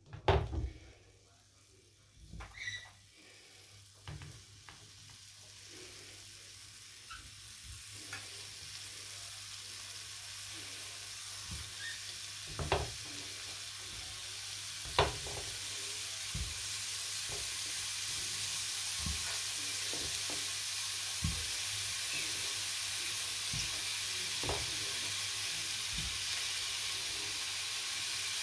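Ground-meat köfte patties frying in a nonstick pan: a sizzle that starts faint and grows steadily louder as more patties are laid in, with occasional soft knocks as each is set down.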